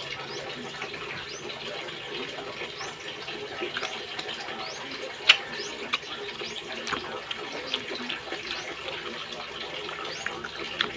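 Eating sounds: chewing and smacking with a few sharp clicks, the loudest about five seconds in, over a steady hiss.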